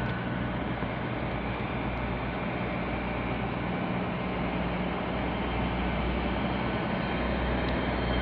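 Great Western Railway intercity train's underfloor diesel engines running while it stands at the platform, a steady low hum and rumble that slowly grows a little louder.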